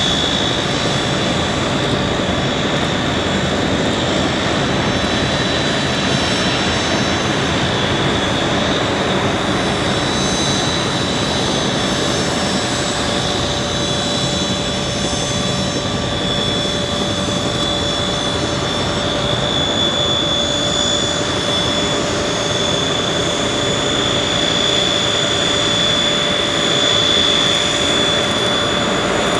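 Aircraft turbine engines running steadily, a dense engine rush with a sustained high-pitched whine on top.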